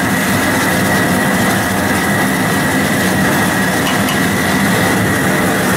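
Dual-flame propane cooker burner running at full, a steady loud roar, heating a big stockpot of water at the boil.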